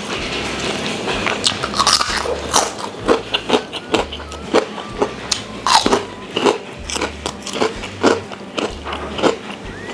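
Close-miked eating sounds of a person chewing a mouthful of stir-fried squid and rice, with irregular quick clicks and smacks of the mouth.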